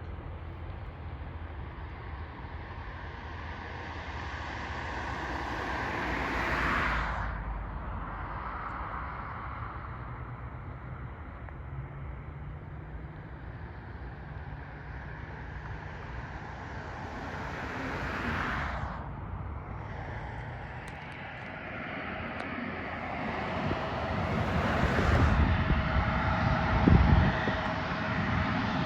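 Two road vehicles pass close by, each swelling and then cutting off sharply, about a quarter and two thirds of the way in. Near the end an aircraft's engine noise builds, with a steady hum and wind buffeting the microphone.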